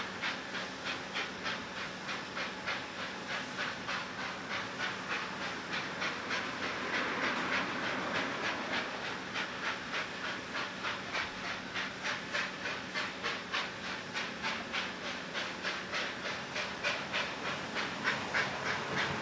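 Steam locomotive working hard as it approaches, its exhaust beating in a steady rhythm of about three to four chuffs a second over a continuous hiss of steam.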